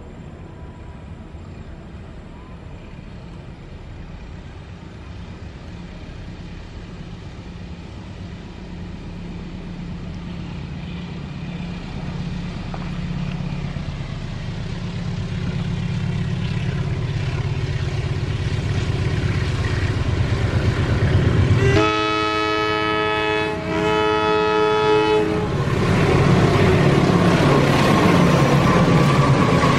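Two diesel locomotives coupled together approach, their engine sound growing steadily louder. About 22 seconds in they sound two long blasts on a chord horn. They then pass close by with loud engine and wheel-on-rail noise.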